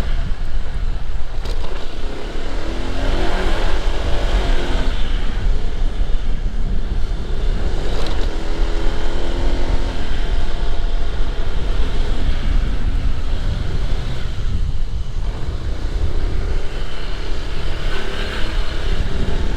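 Motorbike on the move: steady engine and road noise with a heavy low rumble of wind on the microphone, the engine pitch wavering a little now and then.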